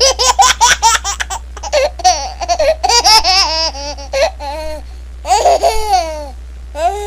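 Baby laughing in repeated bouts of rapid, high-pitched giggles, with a long falling squeal of laughter about five and a half seconds in, over a steady low hum.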